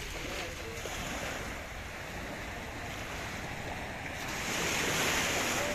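Small sea waves washing onto a sandy beach, with wind buffeting the microphone; the surf swells louder about four seconds in.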